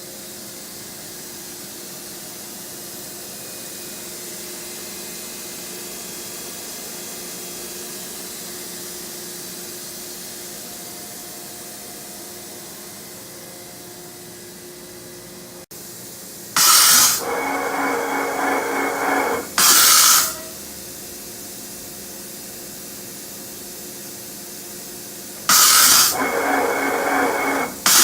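FANUC Robodrill α-T21iEL vertical machining center running with a steady hiss. About halfway through, and again near the end, the same cycle plays: a short loud hissing blast, a couple of seconds of mechanical whirring with a steady whine, then another short blast.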